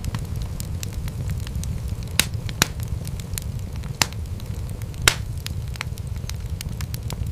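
Wood fire crackling: a steady low rumble of burning with frequent sharp pops and snaps. A few louder snaps stand out in the middle.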